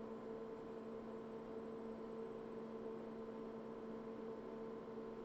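Steady electrical hum: two low steady tones over a faint even hiss, with no other event.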